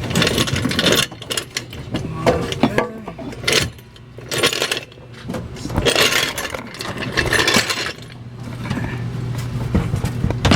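Irregular scrapes, rustles and knocks of work under a truck, coming every second or so, over a low steady hum.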